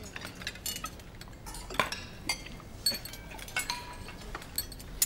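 Spoons and china dishes clinking irregularly as food is served at a dinner table, some clinks leaving a short ring; the loudest comes a little under two seconds in.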